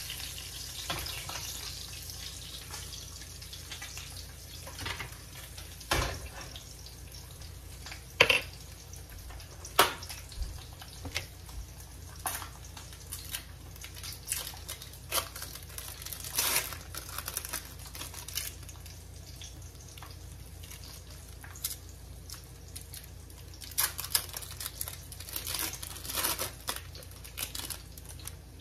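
Meat sizzling faintly in a cast iron pan, fading over the first few seconds. Then kitchen handling sounds: a few sharp knocks and clinks, and plastic wrap crinkling as cheese slices are peeled out of their wrappers, in clusters near the end.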